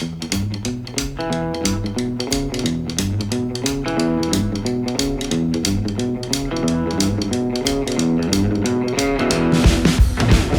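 Intro music: a rock track of guitar and bass over a steady drum beat, growing fuller and louder near the end.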